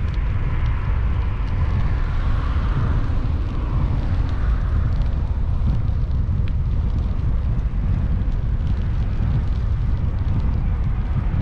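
Wind buffeting the microphone of a camera on a moving bicycle: a steady heavy low rumble, with a hiss that swells and fades a few times.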